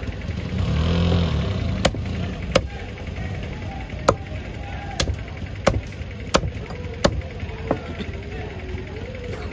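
Heavy cleaver chopping through fish on a wooden log chopping block: about eight sharp chops, roughly one every three-quarters of a second.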